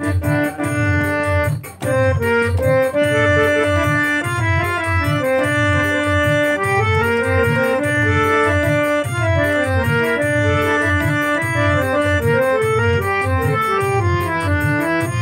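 Instrumental interlude of a song: a melody on an electronic keyboard in an organ-like voice over a steady low beat, with a brief break about two seconds in.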